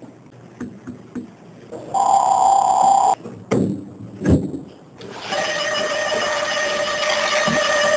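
A loud buzzer-like electronic tone lasts about a second and cuts off suddenly, followed by a few knocks and a thump as a chair is pushed back. From about five seconds in comes a steady high whine, plausibly the radio-controlled toy car's electric motor.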